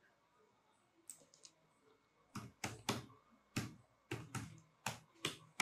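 Typing on a computer keyboard: a few faint ticks, then from a couple of seconds in about ten separate keystrokes at an uneven pace.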